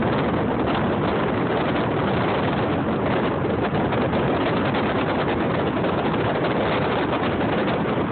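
Steady wind and road noise from a moving vehicle, rushing over the phone's microphone.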